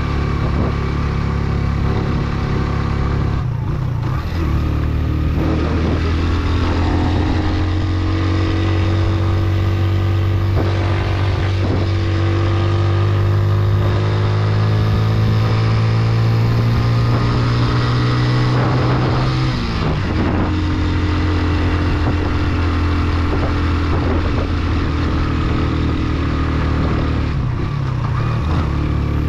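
Motorcycle engine running under way on a ride, its pitch climbing slowly for several seconds, with a brief break about four seconds in and a sharper drop near twenty seconds before it settles steady again.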